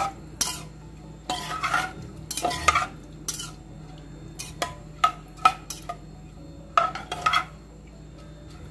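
Steel ladle stirring soaked rice and water in a metal pressure cooker, clinking and scraping against the pot in irregular bunches of strokes with short pauses between.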